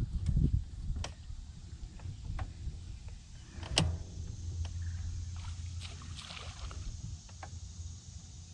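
An electric bow trolling motor hums steadily for several seconds after about four seconds in. Sharp clicks from rod and reel handling during a cast are scattered through, the loudest about four seconds in, with a low rumble at the start.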